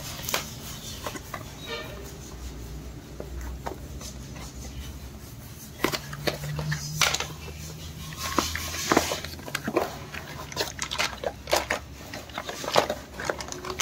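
Handling noise of a new diesel engine piston being moved about and set down on cardboard: scattered clicks and light knocks, busiest in the second half, over a low hum.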